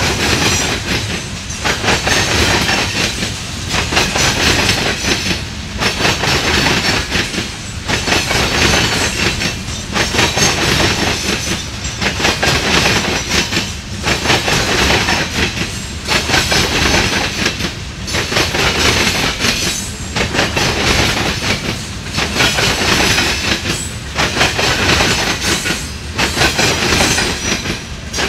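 Empty coal cars of a freight train rolling past, their steel wheels clattering over the rail joints and diamond crossings. The clatter swells and dips in a steady rhythm about every two seconds as each car goes by.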